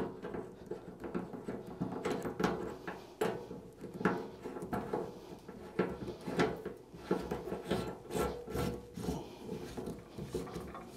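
Metal sleeve of a steel wire armoured cable gland being slid up the cable and screwed onto the gland body by hand: irregular small clicks and knocks with fingers rubbing on metal and the cable's PVC sheath.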